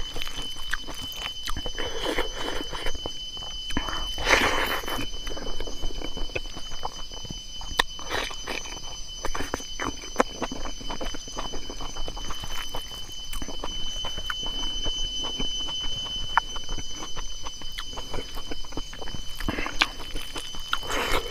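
Close-miked eating sounds: chewing with many short crisp clicks and smacks, over a steady high-pitched whine.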